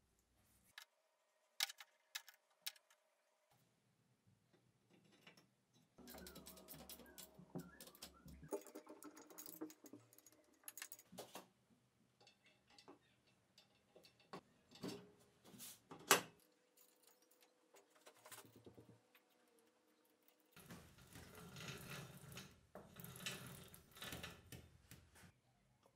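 Light clicks and clinks of steel parts being handled, then irregular rattling of roller chain against a steel sprocket and spanner from about six seconds in, with one sharp metal clack about sixteen seconds in and a denser rattle near the end.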